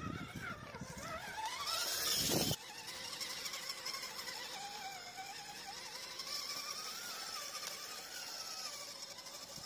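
RC scale crawler's electric motor and gearbox whining, the pitch rising and falling as the throttle is worked. In the first couple of seconds there are loud low gusts and a hissy rush that cut off sharply.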